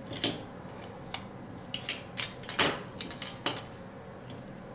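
Plastic toy padlocks and keys clacking as they are picked up and set down on a table: several separate sharp clicks, the loudest a little over halfway through.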